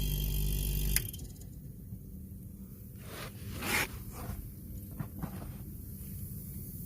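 Single-door chiller's refrigeration compressor humming steadily, then switched off about a second in, cutting out with a click. After it stops, a few short scraping sounds follow, the loudest about three and a half seconds in.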